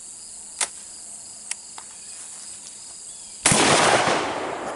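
A few light clicks as the Fed Arm SS12 single-shot break-open 12-gauge shotgun is loaded and snapped shut, then a single loud 12-gauge shotgun blast about three and a half seconds in that trails off over about a second. Crickets chirp faintly underneath.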